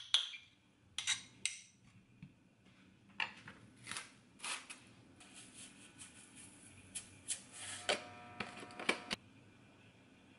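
A spoon clicking and scraping against a small glass mixing bowl as seasonings are stirred into gochujang sauce, with sesame seeds rattling as they are shaken from a jar. A run of small clicks and scrapes that stops about nine seconds in.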